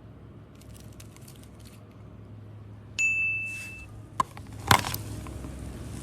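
A single high, bell-like ding about three seconds in that rings and fades over about a second, followed by two sharp clicks.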